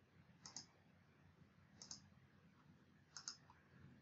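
Computer mouse button clicks: three quick double clicks about a second and a half apart.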